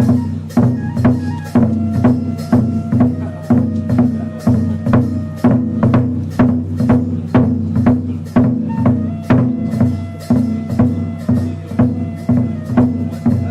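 Kagura shrine music: a drum struck in a steady, quick beat, about three strokes a second, over held sustained tones with high notes in the flute range.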